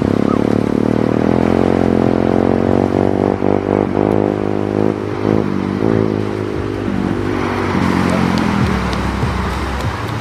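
A motor engine running close by, its pitch shifting a few times, easing off about seven seconds in, after which a steadier rushing hiss with a few clicks takes over.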